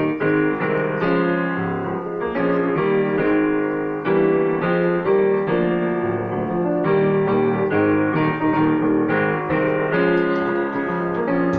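Electric keyboard played with a piano sound: full chords struck one after another at a steady pace, often about two a second.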